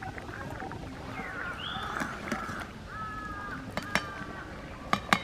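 A few sharp metallic clicks, the loudest pair near the end, as a steel ladle knocks against an aluminium pan of simmering urad dal. Birds call in the background throughout: a rising call and several short, flat calls.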